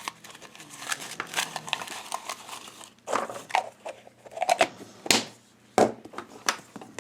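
Rustling and crinkling of paper sticker sheets and plastic packaging being handled, with scattered clicks and two sharper snaps in the second half.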